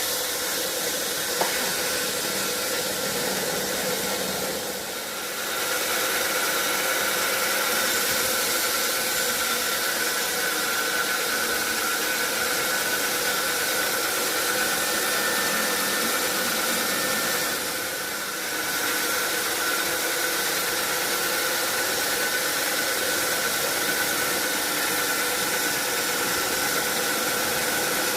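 Sawmill saw running steadily with a high whine over a continuous noise, dipping briefly about five seconds in and again around eighteen seconds.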